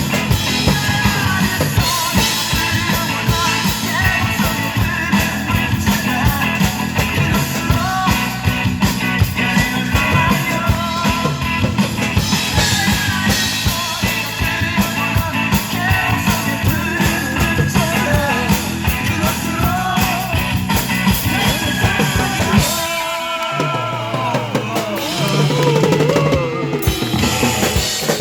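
Drum kit played live along to an upbeat Korean rock-pop song with a male lead vocal. About three-quarters of the way through, the bass and drums drop out for a few seconds while the singing carries on, then the beat comes back.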